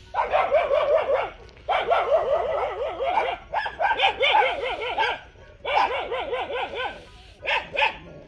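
A dog barking in rapid runs of quick, high yaps, about seven a second: four bursts of a second or so each, then two short ones near the end.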